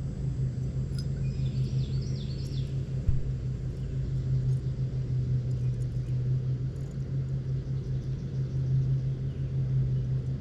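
A steady low hum and rumble, with a short high chirping phrase about a second in, like a bird call.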